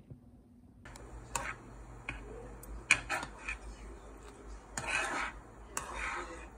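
Noodles boiling in a pot of water, stirred with chopsticks: a few sharp clicks and short scrapes of the chopsticks against the pot over the steady bubbling, starting about a second in.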